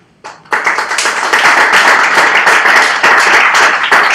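Audience applauding: a couple of single claps, then full applause from about half a second in.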